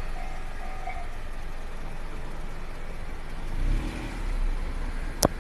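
A Japanese level-crossing warning bell sounds its last tones and stops about a second in. Road traffic noise follows, with a vehicle driving over the crossing a little past halfway. A single sharp click comes near the end.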